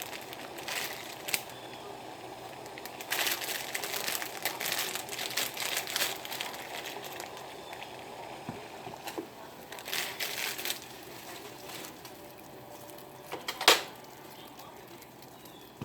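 Stovetop cooking noise: a pot of water boiling with a steady low hiss, overlaid by bursts of crinkling and crackling handling sounds, and one sharp click about three-quarters of the way through.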